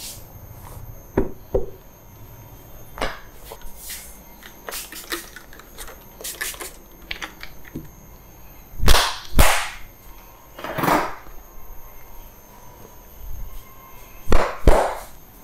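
Sharp hand slaps and claps of a barber's head massage, several coming in quick pairs, with quieter taps and clicks between them.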